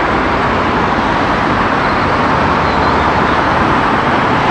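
Single-decker city bus driving along a road in traffic, its engine and tyre noise a steady, even rumble.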